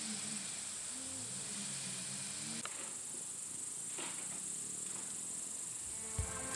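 Crickets chirping in a steady high-pitched drone from the meadow, with a couple of faint clicks.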